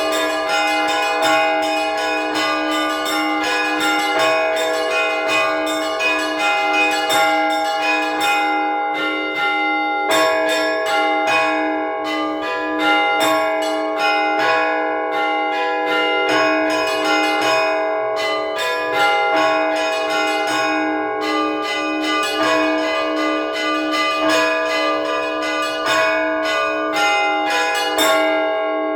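Russian Orthodox church bells rung by hand for a festive Bright Week trezvon. Fast, dense strikes on the small bells run over steady, evenly repeated strokes of a lower bell. Near the end the striking stops and the bells ring on as they fade.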